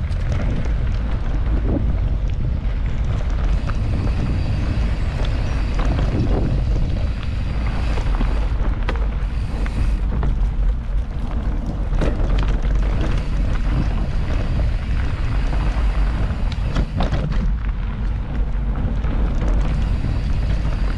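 Wind buffeting the microphone of a camera riding on a mountain bike: a steady heavy rumble, with tyre noise and scattered knocks and rattles from the bike rolling over a forest trail.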